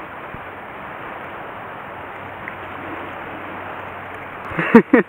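Steady rushing noise of wind and shallow reef water on the microphone. Near the end, a quick burst of about five loud voice-like sounds, each falling in pitch.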